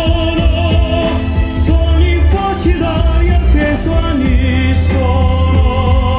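Loud music with a singing voice: a wavering sung melody over heavy bass and a steady beat.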